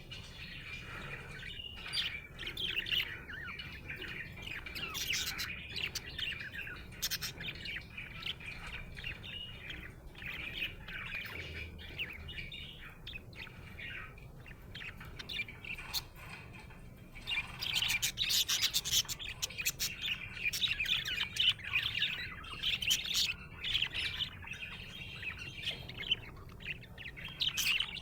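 Budgerigar chirping and warbling in a steady stream of quick, high chirps, getting louder and busier for several seconds past the middle.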